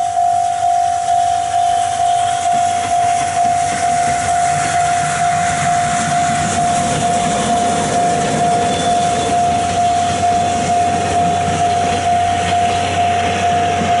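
A railway level crossing bell ringing steadily, one clear tone struck about twice a second. Under it, the C58 steam locomotive and its passenger coaches roll past with a rumble and steam hiss that grow after a few seconds.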